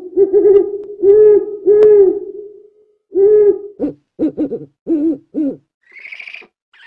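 A series of low hooting calls: several long hoots, then quicker short ones, and higher-pitched calls near the end.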